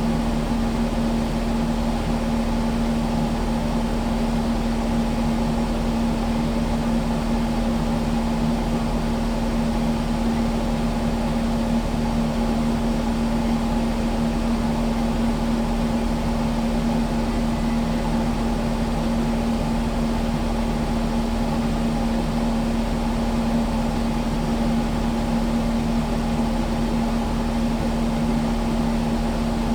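Kubota skid steer's diesel engine running at a steady speed, a constant drone with a strong, even hum that does not rise or fall.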